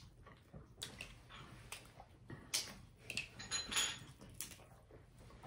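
Cooked lobster tail shells being cracked and pulled apart by hand, with irregular sharp cracks and crackles that bunch together about halfway through, along with close chewing.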